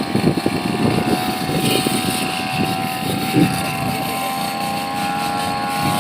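Brush cutter engine held at high speed, giving a steady whine, with an irregular rough crackle underneath as the spinning blade cuts through plant growth.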